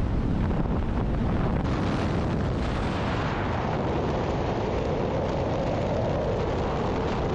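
Strong wind buffeting the microphone: a steady, heavy rushing roar with no break.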